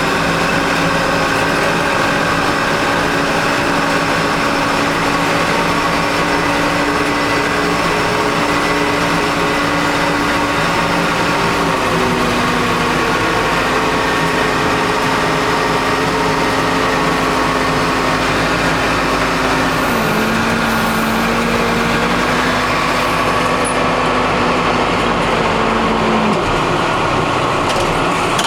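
Backhoe's diesel engine running steadily under load while pushing snow with a pusher box; its pitch drops in a step about twelve seconds in and again about twenty seconds in.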